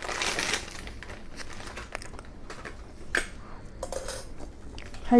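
Hands tearing apart a piece of food with a crinkly rustle in the first second, followed by a few scattered light clicks and taps.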